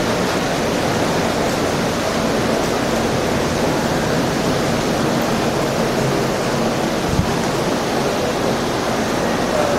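Steady, loud rushing noise with a faint low hum under it, and one brief low thump about seven seconds in.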